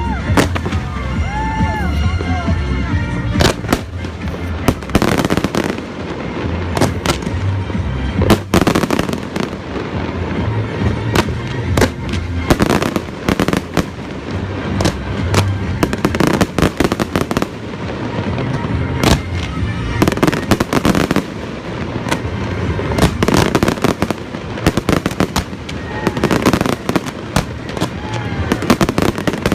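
Fireworks display: a dense, irregular run of sharp bangs and crackling shell bursts going on throughout.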